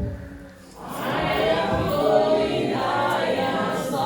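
Church congregation singing a gospel chorus together, many voices in unison, swelling in after a short lull about half a second in.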